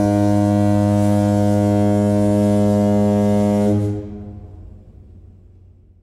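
A ship's horn sounding one long, low, steady blast that stops about four seconds in, leaving a tail that fades away over the next two seconds.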